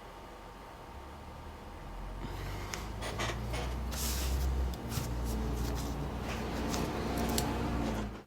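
Handling noise at a workbench: rustling, light clicks and knocks with a low rumble as things are moved close to the microphone, starting about two seconds in after a faint hum, and cutting off abruptly at the end.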